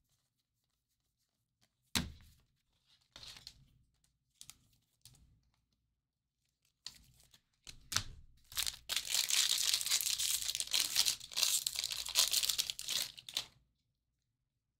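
A single knock about two seconds in. Then, from about eight and a half seconds, some five seconds of tearing and crinkling as the wrapper of a 2019 Bowman Jumbo baseball card pack is ripped open.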